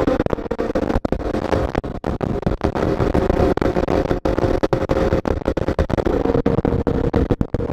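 Aprilia RSV4's V4 engine running steadily at highway cruising speed, heard on board through heavy wind blast that buffets the microphone into choppy dropouts.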